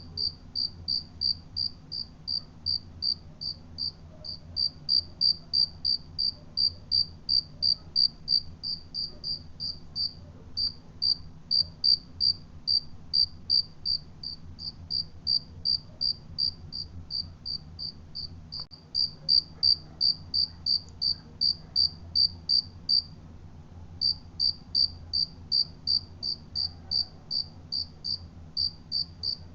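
Cricket chirping in a steady, even rhythm of short, high chirps, about three a second, with one brief pause a little over 20 seconds in.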